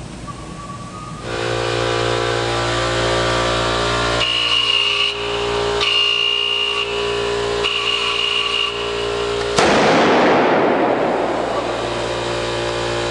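Large spark-gap Tesla coil powered up from its control panel, making a loud steady electrical buzz. A high thin whine comes and goes over it, and about ten seconds in the sound turns into a harsher hiss.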